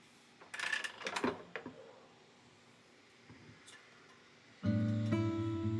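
Glass basket of a The Only air fryer pulled out of its housing, a short run of clicks and knocks. Then guitar music starts near the end.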